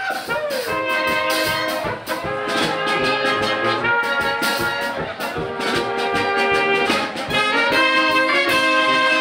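A brass band playing Bohemian-style brass music (böhmische Blasmusik), with held chords moving in a steady rhythm.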